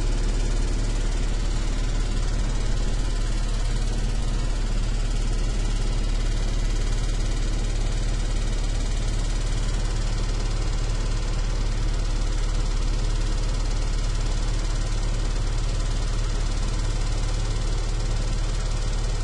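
Big electric fan running steadily: an even rush of moving air over a deep, constant motor hum.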